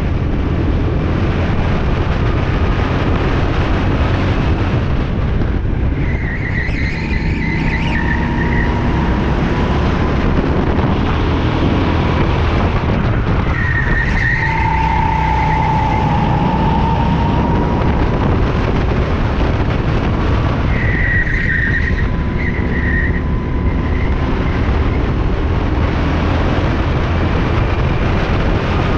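Racing kart's engine running steadily at speed, heard from on board, with the tires squealing briefly through corners three times.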